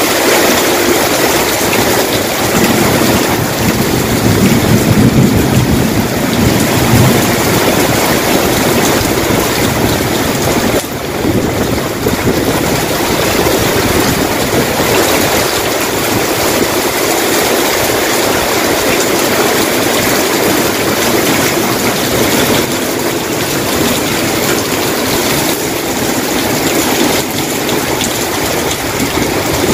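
Heavy tropical downpour with strong wind: a loud, steady rush of rain, swelling for a few seconds around five seconds in.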